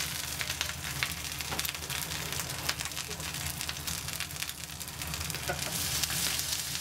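Mapo tofu sizzling and spitting in a small pot over a high gas flame: a steady hiss full of quick crackles over a low, steady rumble. The hiss grows a little stronger near the end, as sauce is ladled into the hot pot.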